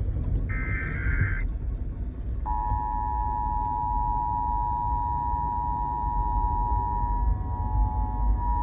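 Emergency Alert System test over broadcast radio: a short, warbling data burst of high tones, then about a second later the steady two-tone EAS attention signal, which holds on over a low rumble.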